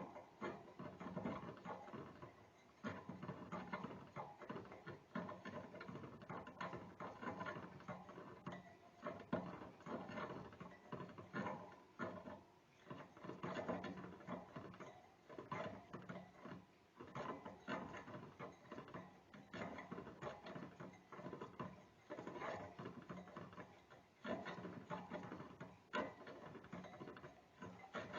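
A small rodent gnawing: rapid, irregular scraping clicks of its incisors coming in bursts, the teeth being worn down by chewing.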